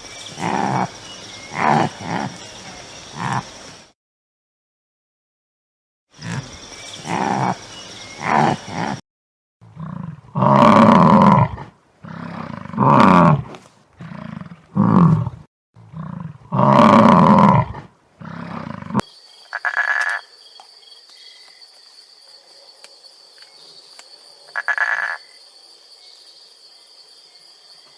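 Deep animal roars, several in a row, each about a second long, in short clips cut apart by silent gaps. Past the middle they give way to a quieter stretch with a steady high tone.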